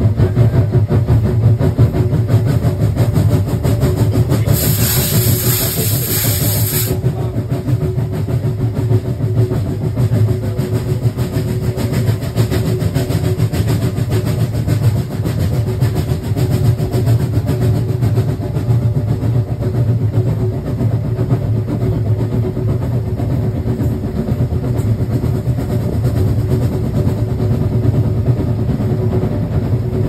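Narrow-gauge steam train running, heard from an open carriage window: a steady rumble of the carriage on the track with a constant hum. About four and a half seconds in comes a loud hiss lasting some two seconds.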